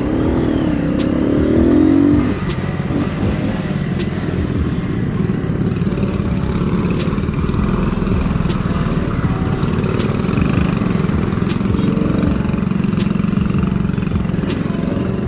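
Keeway Cafe Racer 152 motorcycle engine running steadily at low speed in slow, congested traffic. A louder wavering pitched sound rises and falls over the first two seconds.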